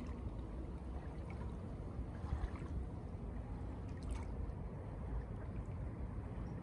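Small waves lapping on a sandy lakeshore, a steady wash of water with a low rumble underneath.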